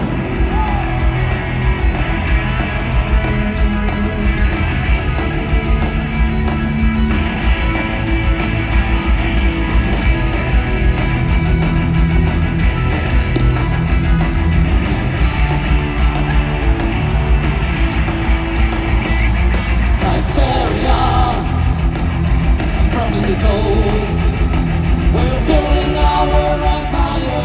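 Live rock band playing at full volume in an arena, heard from the seats: electric guitars, bass and drums with a steady beat, and a singer's voice coming in about twenty seconds in.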